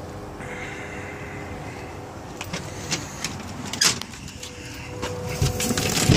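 Phone handling and movement noise over a steady low hum with faint held tones. From about two and a half seconds in come clicks, knocks and rustling, growing louder near the end as a door is opened and passed through.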